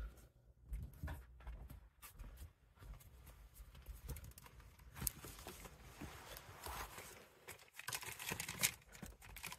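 Clothes on hangers rustling as they are pushed about in a closet, with scattered light clicks.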